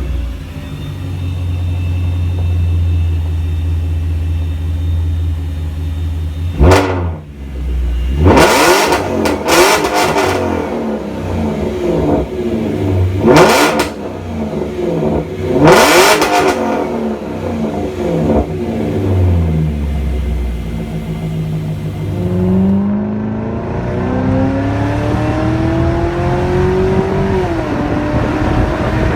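BMW E39 540i's V8 engine idling, then revved hard several times in quick blips. Later it pulls away, its pitch climbing steadily as the car accelerates.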